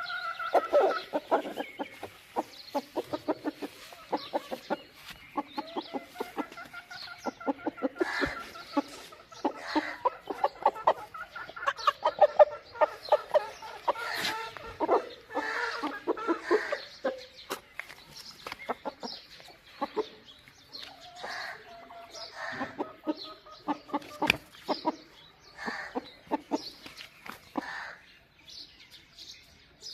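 Chickens clucking and cackling in dense runs of short, rapid calls, thinning out in the last third.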